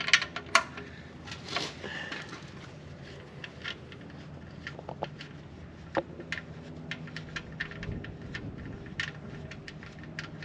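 Irregular sharp metallic clicks and clinks of a wrench working on the 14 mm oil-pan drain plug, the loudest in the first second.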